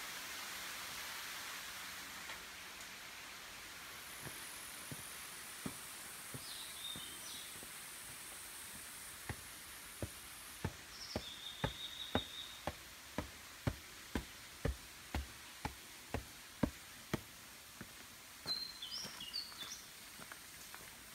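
Footsteps, about two a second, start about nine seconds in and stop near the end, over a steady rush of water from the waterfall. A bird chirps a few times, and an insect gives a thin high buzz in the first half.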